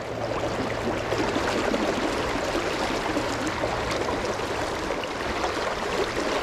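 Beaverkill River water running steadily: an even, unbroken rush of stream current.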